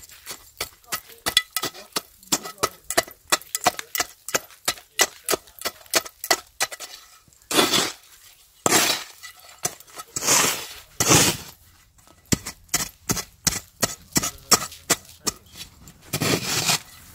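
A rapid series of sharp knocks and clicks, about three a second, broken by a few longer scraping sounds.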